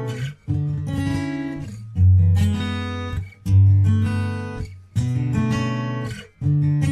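Background music: guitar strumming chords, a new chord struck about every second and a half, each one fading before the next.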